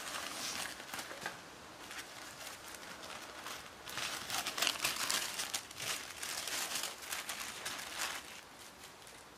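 Sheets of tissue paper and clear plastic sleeves rustling and crinkling as they are handled, busiest about halfway through and dying down near the end.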